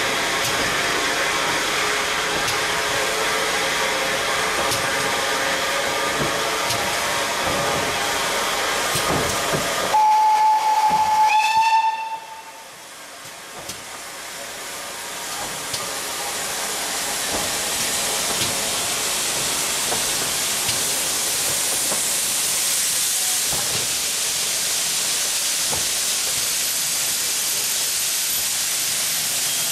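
Steam locomotive hissing steam, cut across about ten seconds in by a loud single-note steam whistle blast of about two seconds that bends slightly upward as it ends. The hiss then comes back softer and swells again to a steady level.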